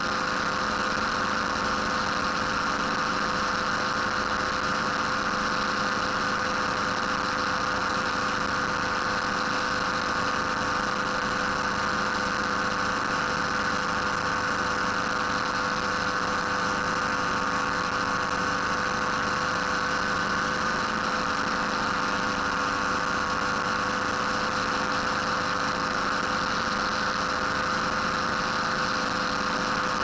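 Ultralight aircraft engine and propeller running steadily in level cruise flight, heard from the cockpit as an unchanging drone with a steady pitch.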